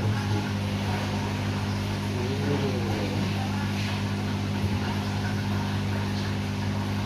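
Steady low mechanical hum, with a faint short rising-and-falling whine about two and a half seconds in.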